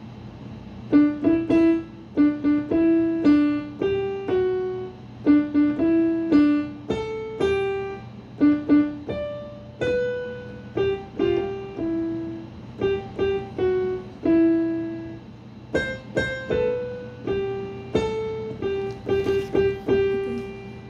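Roland BK-series arranger keyboard playing a piano voice: a simple melody picked out one note at a time with the right hand, starting about a second in.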